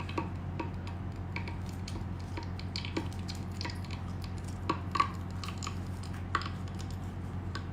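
Scattered light clicks and clinks of kitchen utensils against cookware, over a steady low hum.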